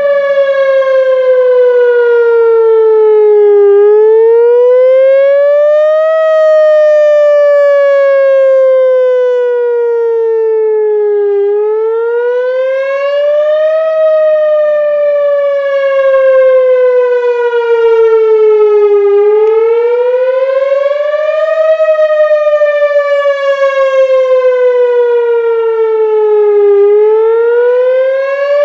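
Whelen WPS-4000 electronic tornado warning siren sounding its wail signal during a siren test. The pitch rises quickly for about two and a half seconds, then falls slowly for about five, in a cycle of roughly eight seconds that repeats over and over.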